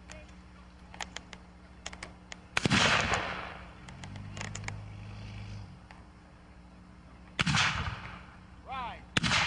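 Black-powder musket shots in a reenactment skirmish. Two loud shots come about two and a half and seven and a half seconds in, each followed by a rolling echo, with fainter distant shots cracking between them.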